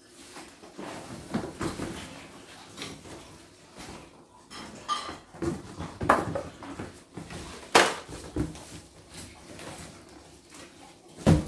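Plastic wrapping rustling and cardboard scraping as a plastic-bagged embroidery machine is pulled out of its cardboard box and the box is lifted away, with sharp knocks about six, eight and eleven seconds in, the one near eight seconds the loudest.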